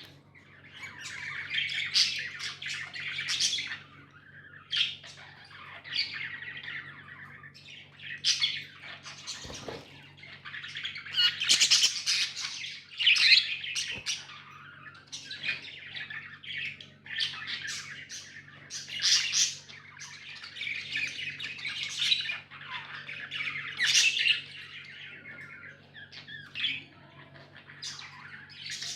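Pet budgerigars chirping and chattering, with squawky warbles coming in bursts of a second or two and short pauses between them.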